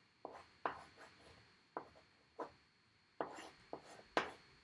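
Chalk drawing on a chalkboard: a string of short, sharp strokes and taps at an uneven pace, the loudest about four seconds in.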